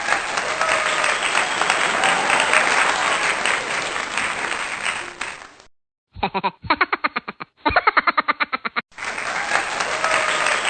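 Crowd applauding and cheering, which cuts off about five and a half seconds in. After a short gap comes a quick stuttering run of short pulses, roughly ten a second, and then the applause returns near the end.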